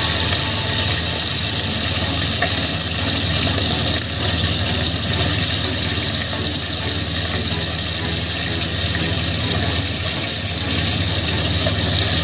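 Steady hiss with a low hum from a lit gas stove burner under a wok of heating cooking oil, as a slotted metal spatula is moved through the oil.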